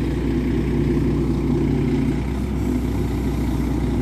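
Diesel engine of a truck-mounted crane running steadily at idle.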